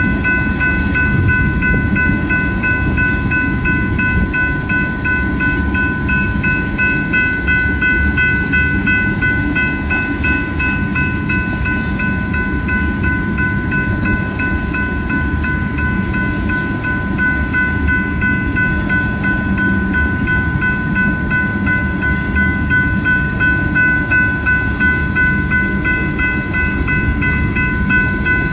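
Freight train tank cars rolling past with a steady low rumble of wheels on rail. A grade-crossing bell rings steadily over it in quick, even strokes.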